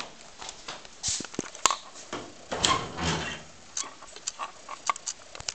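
Scattered sharp clicks and knocks of someone walking through a doorway with a handheld camera: footsteps and handling noise, with a louder, longer knock about two and a half seconds in.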